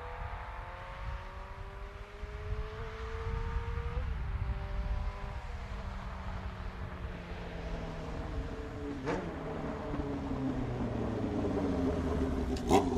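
1980 Honda CB750C's air-cooled DOHC inline-four through a Carpy's 4-into-1 exhaust, revving up with rising pitch, then coming down in pitch as the bike closes on the microphone and passes. A sharp exhaust pop comes about nine seconds in, and louder pops come as it passes close near the end.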